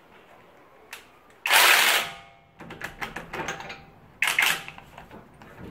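Metal tools and suspension parts clicking and clattering at a car's front wheel hub during repair work, with two loud, sudden bursts of noise about a second and a half in and again near the four-second mark, and rapid ticking between them.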